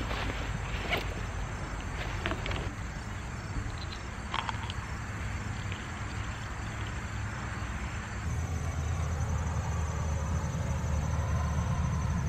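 A high, fast, steady insect trill, cricket-like, starting about eight seconds in, over a steady low rumble. In the first few seconds a few short clicks and rustles come from a backpack being opened.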